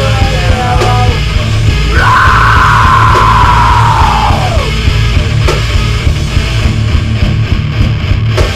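Metalcore band playing heavy, dense rock with pounding drums and bass, mastered very loud. About two seconds in, a long high scream holds for nearly three seconds and slides down as it fades.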